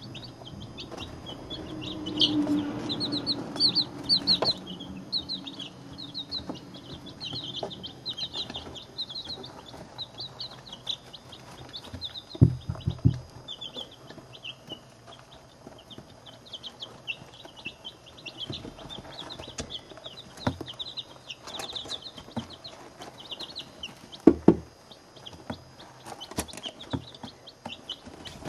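A box of week-to-ten-day-old chicks (Barred Rocks, Silver Laced Wyandottes, Blue Copper Marans and ISA Browns) peeping constantly, many short high chirps overlapping. A few dull knocks close by, the loudest about twelve seconds in and again near twenty-four seconds.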